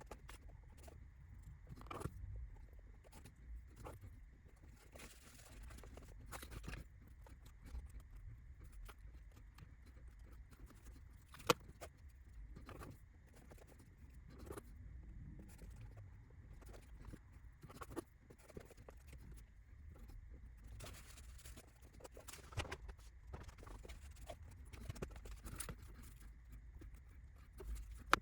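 Scattered small clicks, taps and handling noises of laser-cut kit parts and tools being worked on a bench, with one sharper click about eleven seconds in.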